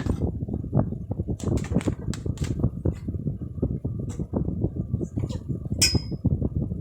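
Slime being squeezed and kneaded by hand, making a fast, irregular run of small crackles and pops, with a few sharper clicks.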